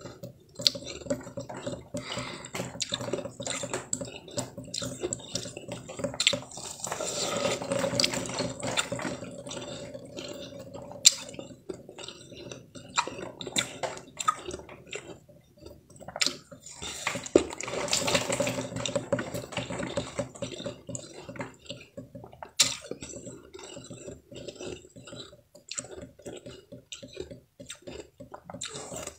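Soft blue-tinted ice being bitten and chewed, with many small crackles and clicks and meltwater dripping. There are two louder stretches of dense crunching, about seven and about seventeen seconds in.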